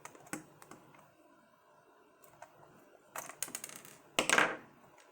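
Batteries and a plastic battery compartment being handled on a toy RC excavator: scattered small clicks, a quick run of clacks about three seconds in, then a short, louder scrape about four seconds in.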